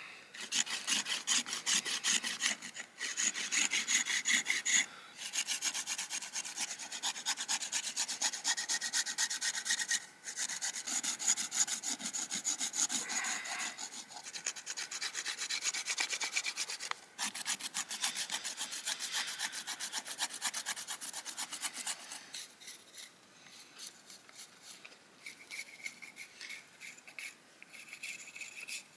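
A stone flake scraping the bark off a green wooden stick in rapid rasping strokes, with a few short pauses. Over the last several seconds the strokes turn softer and lighter.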